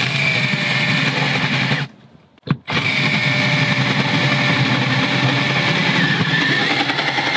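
Cordless drill driving a hole saw through the van's exterior cassette-toilet access door, cutting a hole for a vent hose. It runs steadily, stops about two seconds in, gives a brief blip, then runs again and cuts off sharply at the end.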